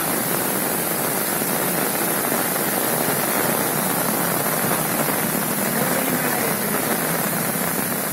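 Steady rush of a flooded stream's fast brown water, mixed with rain falling on an umbrella overhead.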